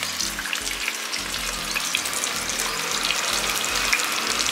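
Chicken, onions and cherry tomatoes frying in hot oil in a pan: a steady sizzling hiss with small crackles.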